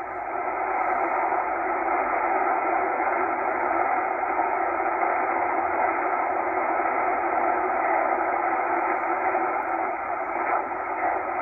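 Tecsun H-501X shortwave receiver in upper sideband mode giving a steady hiss of band noise and static while it is tuned up through the 8 MHz maritime band, with no signal clearly copied.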